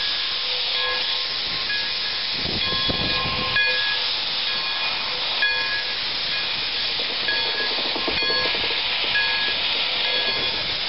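Pere Marquette 1225, a 2-8-4 Berkshire steam locomotive, moving slowly with its cylinder cocks open: a steady, loud hiss of blowing steam, with faint short tones coming and going over it.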